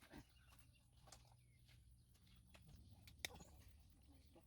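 Near silence: a faint low hum with a few soft ticks, and one sharp click about three seconds in.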